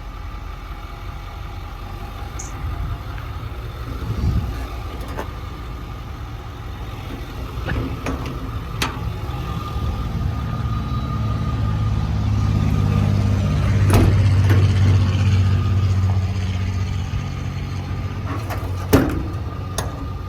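Ford 6.4 Power Stroke V8 diesel idling steadily, growing louder for several seconds past the middle. A few sharp knocks sound over it, the loudest near the end.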